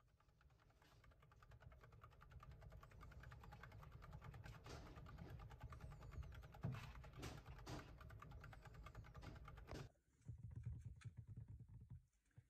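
Hamster running in a wooden exercise wheel: a fast, even clatter of the turning wheel and the hamster's feet on it, growing a little louder over the first seconds and stopping abruptly about ten seconds in.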